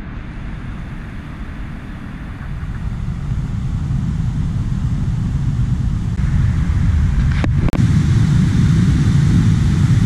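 Rushing water of a rain-forest stream, a steady low rumble that swells louder over the first several seconds. After a sharp break near the end it is the fuller, even rush of water cascading over boulders below a waterfall.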